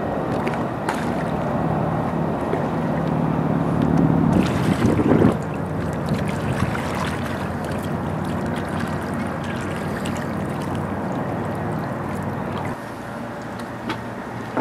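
Wind buffeting the microphone over open water, with water lapping. A low steady hum runs under it for the first few seconds, then a louder gust of wind noise comes about five seconds in.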